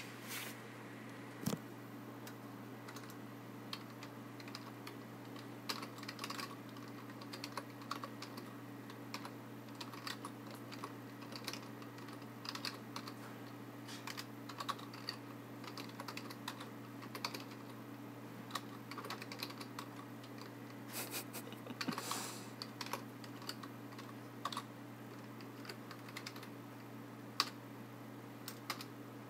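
Computer keyboard being typed on: irregular runs of key clicks with short pauses, over a steady low hum.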